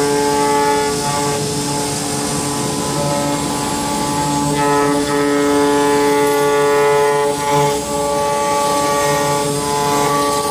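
CNC router's electric spindle whining at high speed as its router bit carves a wooden block. Its steady tones shift and step every second or two as the cutter moves through the wood.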